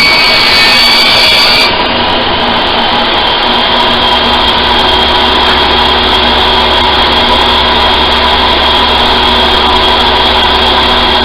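Sears Craftsman contractor table saw running with a steady motor whine. The whine drops in pitch about two seconds in and stays lower.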